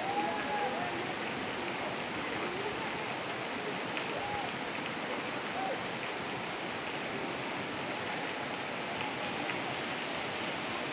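Beas River in flood: a steady rush of fast, muddy floodwater.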